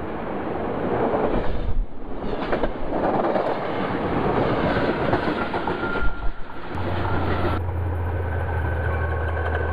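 Trinity Railway Express commuter train passing close by, its bi-level coaches making a steady rolling rail noise. About seven seconds in, a steady low engine hum from an approaching diesel locomotive sets in.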